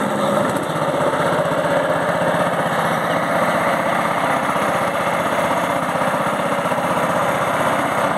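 A small boat's engine running steadily as the boat moves along the river, an even, fast putter with no change in speed.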